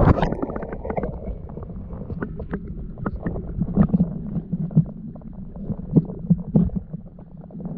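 Muffled river water sloshing and splashing close to the microphone, with many small irregular splashes and knocks.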